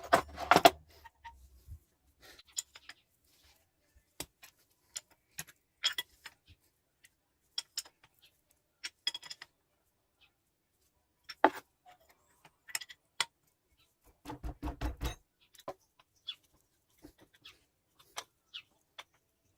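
Scattered metallic clinks, taps and knocks of tools and gearbox parts being handled, some ringing briefly, with a quick run of heavier knocks a little after the middle.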